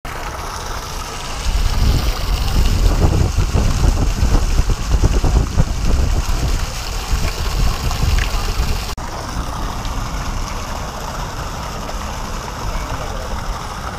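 Splashing fountain water in a steady noisy wash, with a heavy low rumble over it for the first several seconds. The rumble ends abruptly at a cut about 9 seconds in, and the water carries on more evenly after it.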